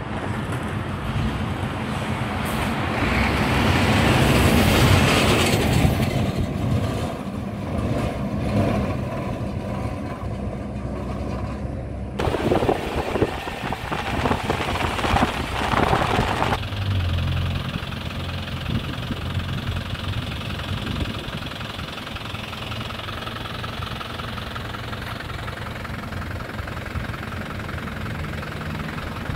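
Kombi van running on the road, its engine and road noise steady. The sound changes abruptly twice, about twelve and sixteen seconds in.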